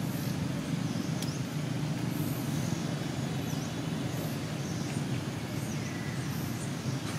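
Steady low outdoor rumble, like distant traffic, with faint high chirps now and then.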